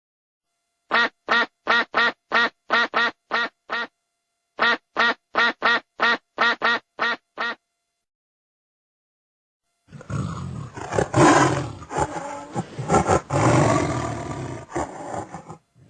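A duck quacking in two quick runs of about eight to ten quacks each, each run fading a little. After a short silence, a big cat roars for about six seconds.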